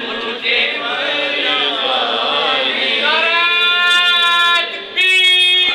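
Man singing a naat unaccompanied in long, drawn-out phrases, with one note held for over a second about three seconds in.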